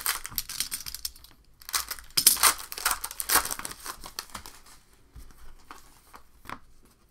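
Trading-card pack wrappers crinkling and tearing as packs are opened, with cards rustling as they are handled, in irregular bursts that are loudest a couple of seconds in and fainter near the end.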